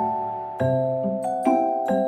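Background music: a gentle melody of bell-like mallet-percussion notes over low bass notes, a new note struck about every half second.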